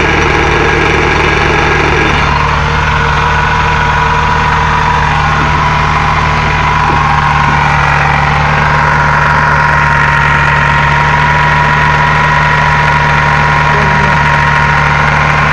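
Car engine idling steadily with the manual gearbox and driveshaft turning, demonstrating the knock the gearbox developed after its reverse gear was replaced. A mid-pitched whine over the idle shifts about two seconds in and again around eight seconds in.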